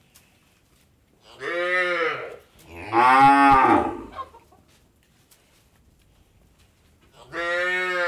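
Cattle mooing: three long moos, each rising and then falling slightly in pitch. The middle one is the loudest, and the third starts near the end.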